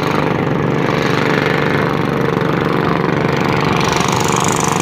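A fishing boat's engine running steadily, with a rapid, even beat of firing pulses.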